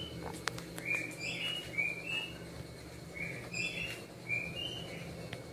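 A string of short, high chirps like small birds calling, roughly two a second, some rising and some falling, over a low steady hum.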